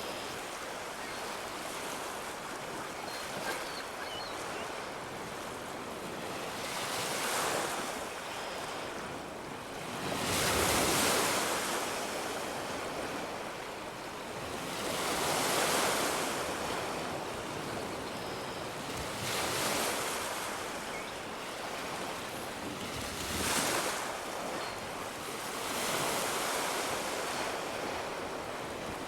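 Sea waves breaking and washing up a beach, surging about every four seconds over a steady hiss of surf, the loudest wave about a third of the way in.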